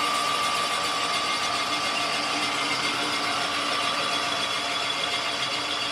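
Rottler boring bar cutting a cylinder bore in a small-block Chevy V8 block: the machine runs steadily, a constant tone over a hiss.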